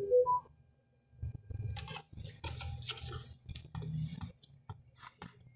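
A short rising three-note electronic beep from the Bluetooth/USB MP3 decoder board, played through the boombox speakers: the prompt tone for switching from USB to Bluetooth mode. After it come a few seconds of faint rustling and light clicks of handling.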